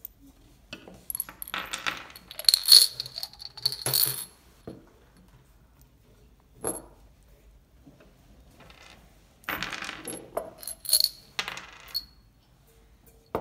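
Small steel nuts and bolts clinking and rattling against each other and a small glass jar as they are tipped out into a hand and onto a wooden table, in two bursts of a couple of seconds each with a single clink between them.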